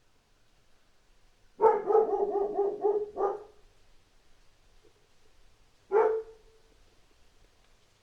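Dog barking: a quick volley of about eight short barks, then a single bark about three seconds later.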